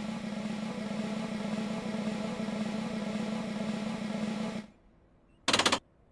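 A steady electric hum with one strong low tone, like a running appliance motor, which cuts off abruptly about three-quarters of the way through, followed by a short harsh buzz near the end.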